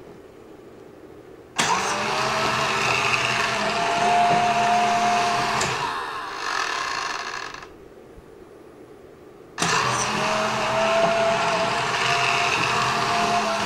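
Roomba 4110 robot vacuum's motors starting abruptly and running twice for about four seconds each, a whining tone that rises slightly over a lower hum, with a pause between. It is a failed attempt to dock, part of the fault the owner takes for the Roomba's "circle dance syndrome".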